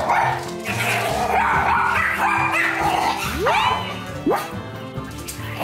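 Background music with small dogs barking and yipping as they play, and two quick rising squeals a little past the middle.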